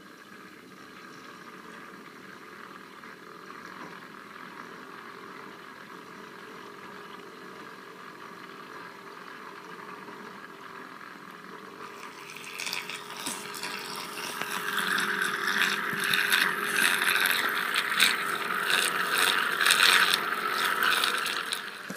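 A small tornado-maker motor spins the water in a clear tube with a steady whir. About twelve seconds in, a much louder rattling, crackling noise joins and grows, then stops just before the end.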